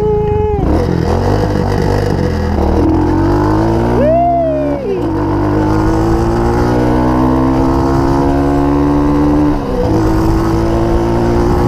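Motorcycle engine heard from the rider's seat, pulling hard. Its pitch climbs steadily through each gear and drops sharply at gear changes about half a second, five and ten seconds in. A quick rise and fall comes just before the second drop.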